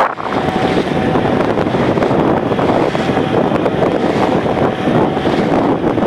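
Steady rush of wind buffeting the microphone, mixed with water washing past the hull of a fishing canoe under way.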